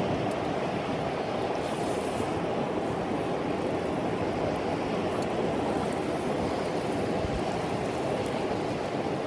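Steady rushing noise of flowing river water mixed with wind, even and unbroken.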